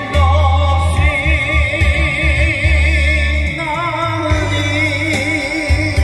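A song: a lead voice singing with wide, regular vibrato over a backing track with a heavy, steady bass.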